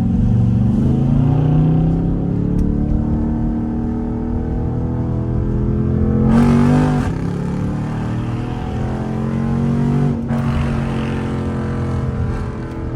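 Straight-piped SRT8 Jeep Grand Cherokee's HEMI V8 pulling under throttle, its exhaust note rising in pitch as it accelerates. There is a brief rushing burst of noise about six seconds in, and just after ten seconds the note drops suddenly and climbs again, as on a gear change.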